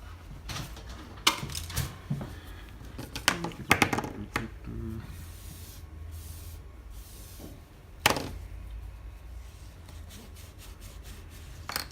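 Small parts from a dismantled remote microphone being handled on a workbench mat: a series of sharp clicks and knocks as pieces are picked up and set down, with a soft rustle in the middle.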